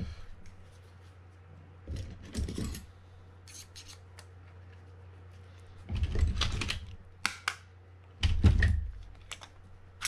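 Small fishing-reel parts and hand tools being handled during disassembly: scattered light clicks and taps, with two heavier knocks about six and eight and a half seconds in, the second the loudest.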